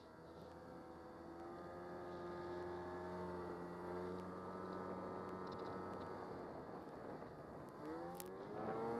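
Snowmobile engine running steadily under load in deep powder, then revving up, its pitch rising, near the end with a brief click partway through the rise.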